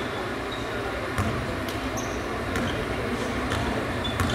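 A basketball bouncing on a hardwood gym floor as it is dribbled, a handful of separate sharp bounces over a steady gym background, with a few short high squeaks of sneakers on the floor.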